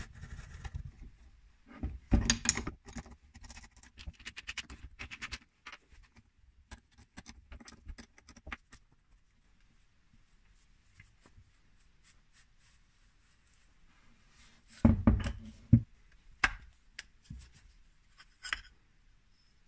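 Metal clicks, knocks and scrapes of a car starter motor being handled and taken apart by hand on a workbench, its housing, armature and end cap shifting against each other. A busy run of clicks comes a couple of seconds in, and the loudest knocks come about three-quarters of the way through.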